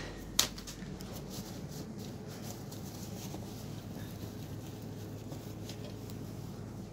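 Plastic bags on loaves of bread crinkling faintly as they are handled, with a sharp click about half a second in, over a steady low hum.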